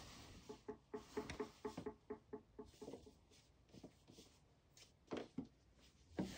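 Light taps, scratches and rustles on a cardboard box and its corrugated cardboard scratcher as a kitten paws and a hand plays inside it: a quick run of hollow-sounding taps over the first few seconds, then scattered softer taps and rustles.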